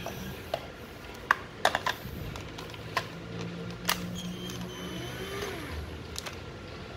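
A 9.6 V cordless drill being handled for a test: a series of sharp clicks from its switch and controls over a low steady hum, with a faint rising and falling whine about two-thirds of the way in.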